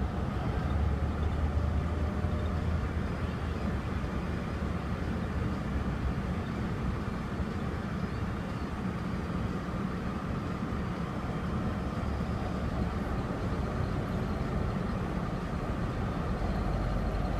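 Steady low rumble of a motor vehicle's engine with road noise, without change throughout.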